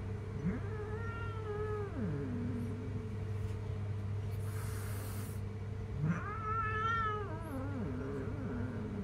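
Domestic cat giving two long, drawn-out meows a few seconds apart, each wavering in pitch, over a steady low hum.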